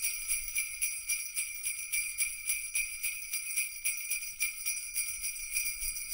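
Sleigh bells jingling with a steady, rhythmic shake, a bright high ringing.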